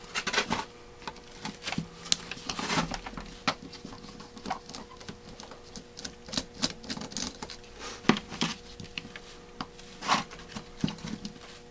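Irregular light metallic clicks, taps and scrapes as a screwdriver and fingers work on the cast top section of a Rochester B one-barrel carburetor during disassembly.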